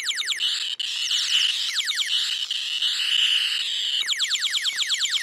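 Electronic sound effects from Tiger Electronics light-and-sound Captain Planet action figures: bursts of quickly repeated falling electronic zaps, with a steady high buzzing tone between the bursts, thin and without any low end.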